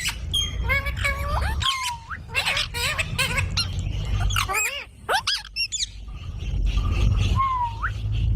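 Indian ringneck parakeets calling: a string of short, shrill squawks and chirps that glide up and down in pitch, with a low rumble underneath that grows stronger in the second half.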